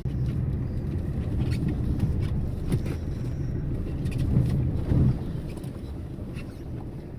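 Car driving over a rough road: steady low road and engine rumble with a few light bumps, and no clunk from the suspension now that the worn link rod has been replaced.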